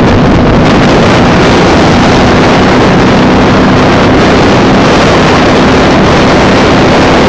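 Heavy wind rush on the microphone over a cruiser motorcycle's engine running steadily at road speed.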